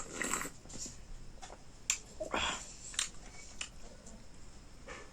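Close-miked eating sounds: chewing and wet mouth clicks and smacks, with a few short bursts near the start and about two and a half seconds in.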